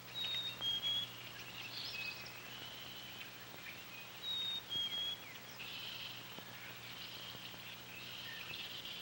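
Songbirds singing: short clear whistled notes stepping down in pitch in a phrase that repeats about every four seconds, with twittering between the phrases.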